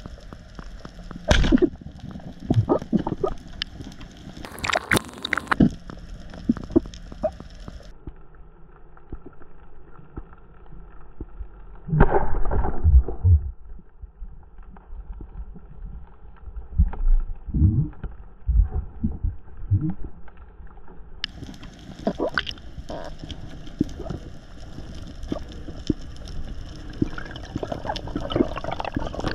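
Water sloshing and gurgling as heard underwater, with scattered clicks and knocks. A louder rush of water noise comes about twelve seconds in.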